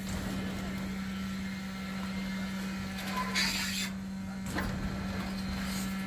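Concrete poker vibrator running in wet concrete with a steady, unbroken hum. A brief hiss comes about three and a half seconds in, and a short knock follows about a second later.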